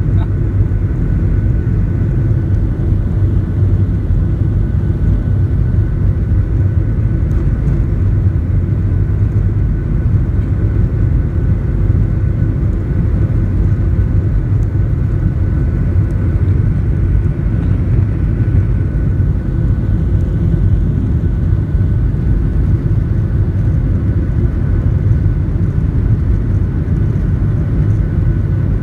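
Boeing 737-700 in its takeoff roll, heard from the cabin by the wing: the CFM56-7B engines at takeoff thrust give a steady loud rumble with a faint steady whine over it.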